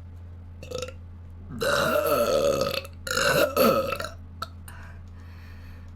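A person burping twice in a row: two long, drawn-out belches of about a second each, the second one the loudest.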